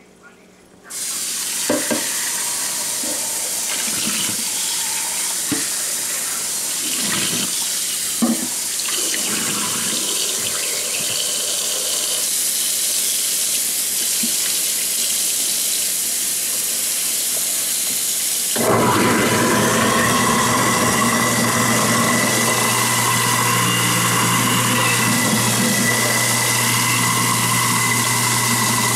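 Kitchen faucet running into a sink, with a few clinks and knocks of a jar and dishes being handled in the first third. About two-thirds of the way in, a steady motor hum starts up and runs on under the water.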